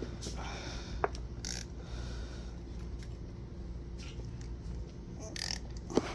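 Socket ratchet being worked on the mounting bolt of a Toyota Camry radiator fan, with scattered sharp metallic clicks and short scrapes. The bolt is being tightened over added washers so the fan no longer wobbles and vibrates.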